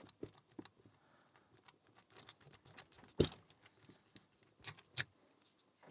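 Small metallic clicks and taps of a lock pick and tension tool working inside a cheap padlock, scattered and irregular, with one louder click about three seconds in.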